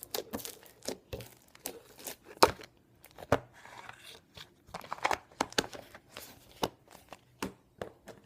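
Crunchy borax-and-lotion milky slime being squeezed and kneaded by hand, giving irregular crackling pops and crunches, with one sharp loud pop about two and a half seconds in.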